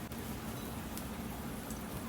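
Wood and charcoal fire burning: a steady hiss with a faint crackle or two.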